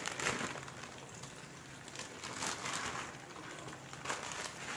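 Plastic Maggi instant-noodle packet crinkling softly in the hands, a few brief rustles as the noodle blocks are tipped out into the pan.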